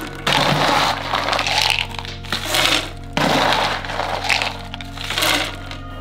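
Corrugated flexible plastic tube crackling and scraping against rock as it is worked down between stones, in three long strokes, with soft background music underneath.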